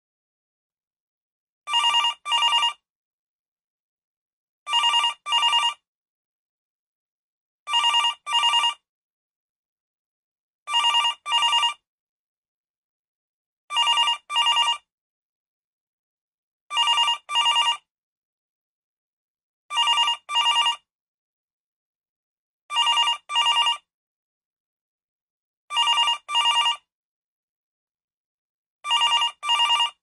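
Telephone ringing in a double-ring pattern: two short rings in quick succession, repeating about every three seconds, ten times over, with silence between.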